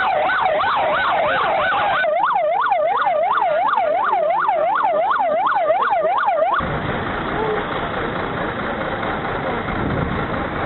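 Emergency vehicle sirens yelping in fast rising-and-falling sweeps, about two and a half a second, two sirens overlapping at first and then one alone. About two-thirds of the way through they cut off abruptly to the steady noise of a crowd.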